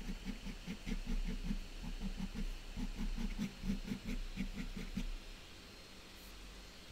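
Fine-tip Micron drawing pen making quick, short strokes on toned paper, several a second. The strokes stop about five seconds in.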